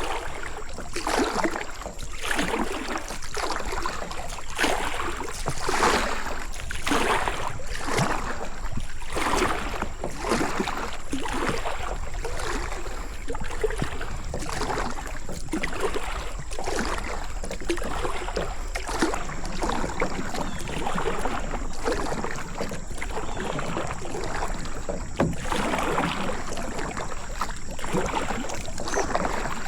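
Kayak paddle strokes, the blades splashing and pulling through the water in a steady rhythm of about one stroke a second.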